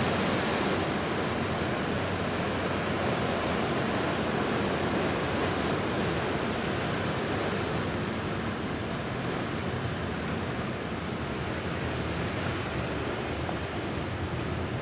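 Steady rushing noise of wind and sea, with no distinct events, growing slowly quieter.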